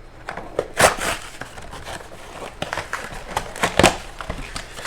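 Mega box of trading cards being opened by hand: cardboard and wrapping rustling and crinkling, with two louder rips or scrapes, one about a second in and another near four seconds in.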